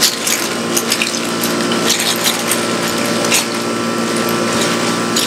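Sheet of paper crinkling and rustling in irregular bursts as it is peeled back off rolled pie dough, over a steady machine hum.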